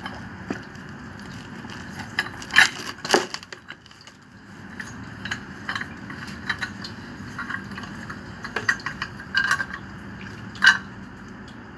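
Metal clinks and knocks from threaded steel pipe fittings on a small peripheral water pump being handled and turned, with the sharpest knocks about two and a half, three, and ten and a half seconds in.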